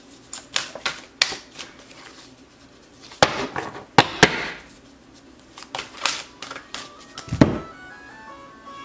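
Large oracle cards being shuffled by hand, a string of quick card clicks and rustles with a few sharp knocks of the deck about three and four seconds in. Near the end a phone ringtone starts playing a melody.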